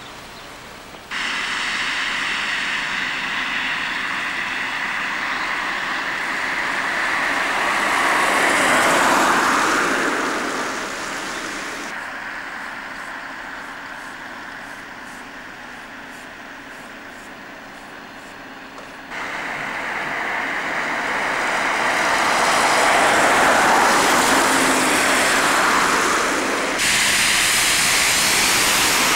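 Road traffic on a wet, slushy road: tyre hiss of passing cars swelling and fading twice. The level steps up or down abruptly several times.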